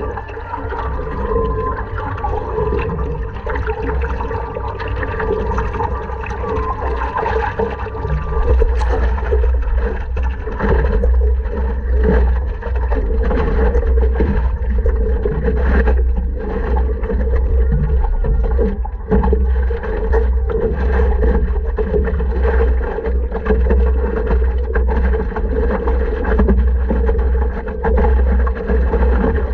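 Water sloshing and lapping against a stand-up paddleboard as it is paddled, picked up by a camera on the board's deck, over a steady low rumble that gets heavier about eight seconds in.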